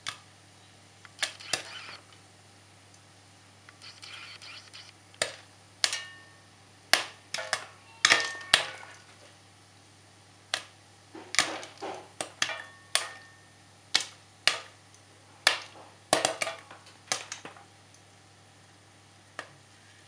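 Popcorn kernels popping in a pan: sharp, irregular pops, some single and some in quick runs of several, with gaps of a second or more between them.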